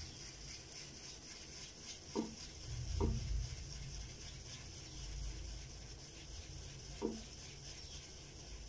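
Shaving brush being swirled in a bowl to whip up shaving cream lather, a steady wet stirring sound, with a few light knocks against the bowl.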